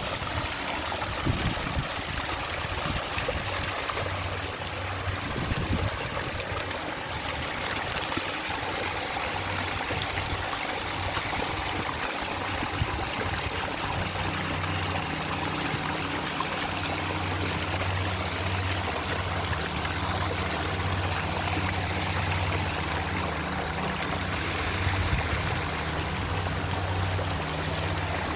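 Waterfall water rushing and splashing steadily, with a low hum that comes in about halfway through.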